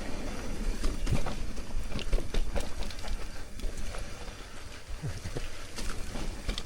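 Mountain bike rolling down a rough trail: irregular knocks and rattles from the tyres and frame over rocks and roots, over a steady rumble of wind on the microphone.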